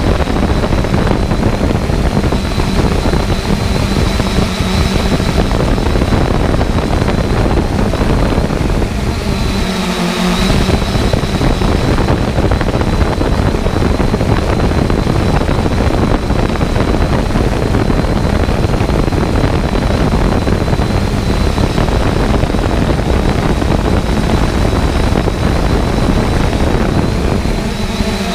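Quadcopter drone's propellers and motors running steadily, heard close up from the drone's own camera: a loud whir with a thin high whine, briefly changing about ten seconds in.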